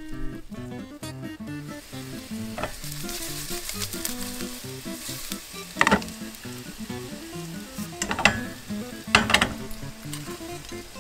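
Sliced garlic sizzling in olive oil in a nonstick frying pan, with a few sharp knocks as the pan is moved off the gas burner and handled.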